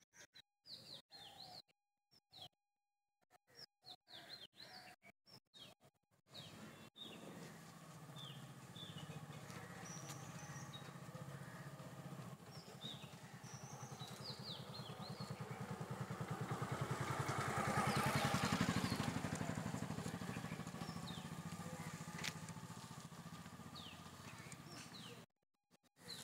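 Small birds chirping in short, falling notes, joined about six seconds in by a motor vehicle engine passing on a road, which grows steadily louder to a peak past the middle and then fades. The engine sound stops suddenly about a second before the end.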